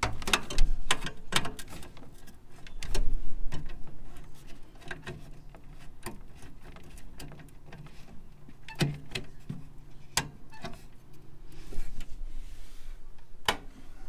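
Irregular sharp clicks and small metal taps from a stubby screwdriver and hands working at a gas furnace's flame sensor bracket, with a few dull bumps; the loudest clicks come near the end.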